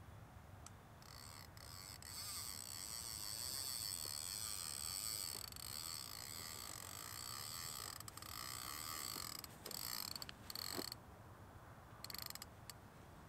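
Fishing reel being cranked to take up line, its gears whirring steadily with a fine ratcheting texture for most of the time. It breaks off near the end into a couple of short bursts as the rod is set down.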